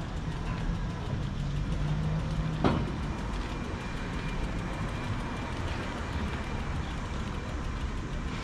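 Steady low rumble of a moving vehicle, with a low hum that fades out and a single sharp knock a little under three seconds in.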